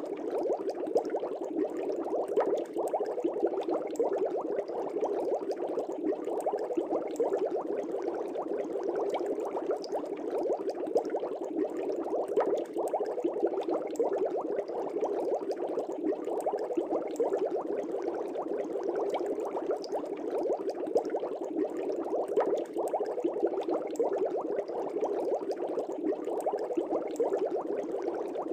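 Aquarium air bubbles streaming up through the water, a steady dense bubbling made of many tiny pops.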